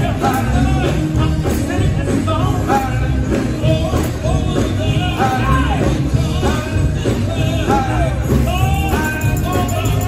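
Live gospel quartet singing, a lead voice with backing harmonies over electric guitar and a steady bass beat, amplified through a PA in a large hall.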